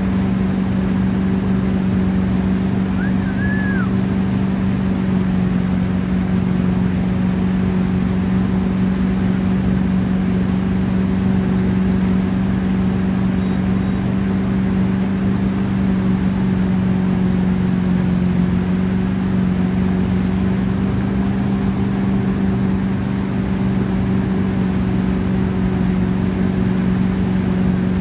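Tow boat's engine running at a steady speed, a loud, even hum that holds one pitch, while the boat pulls a wakeboarder.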